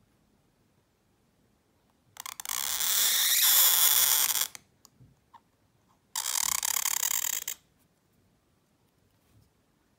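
Calligraphy pen nib scratching across paper in two strokes: a long one of about two and a half seconds starting about two seconds in, and a shorter one of about a second and a half near the end.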